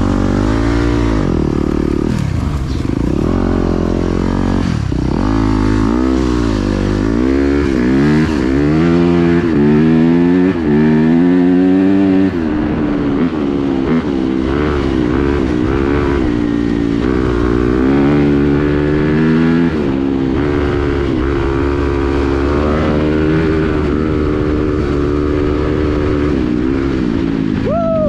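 Yamaha dirt bike engine being ridden, its pitch repeatedly climbing and dropping as the throttle is worked and gears change.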